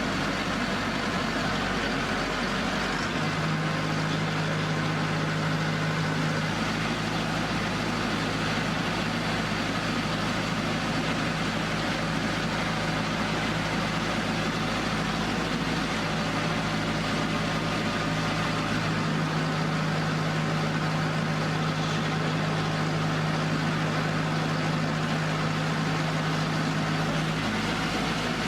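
The HWL300R pile driver's engine running steadily with no hammer strikes. Its low hum changes pitch about 3 seconds in and then holds steady.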